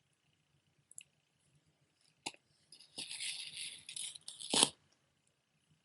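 Costume jewelry being handled: a couple of light clicks, then a necklace chain and pendant rattling for about a second and a half, ending in a sharper clack.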